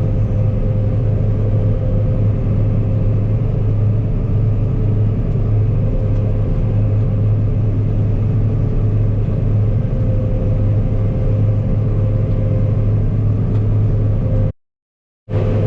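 Combine harvester running steadily while harvesting wheat: a constant low engine drone with a steady higher whine over it. The sound cuts out completely for under a second near the end.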